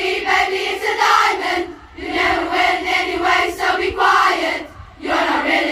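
A large group of school pupils chanting a rehearsed cheer in unison, in phrases of about two seconds with short breaks between them.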